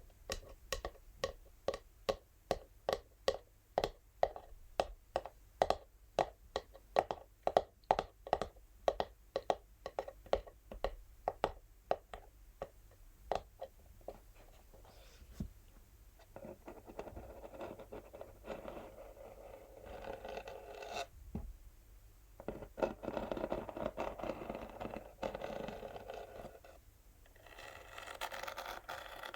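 Natural fingernails tapping on an empty textured cardboard box, about three taps a second. The tapping gives way to long scratching strokes across the cardboard about halfway through, with short breaks between the strokes.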